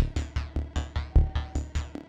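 Electronic music from Korg Volca synthesizers and drum machine: a fast, even run of short punchy bass notes, about five a second, each with a bright, quickly decaying top, and a short held synth tone about halfway through.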